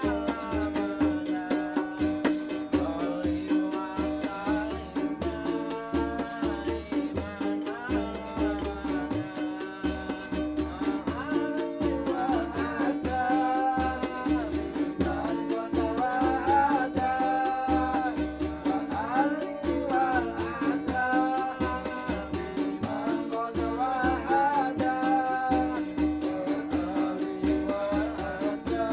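Music with singing over a steady drum beat and a fast, even shaker rhythm.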